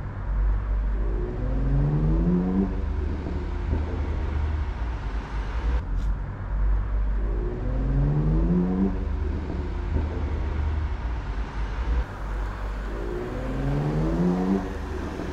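Car engine revving up while driving, its pitch rising three times for about a second and a half each, over a steady low rumble of road and wind noise. A single sharp knock about six seconds in.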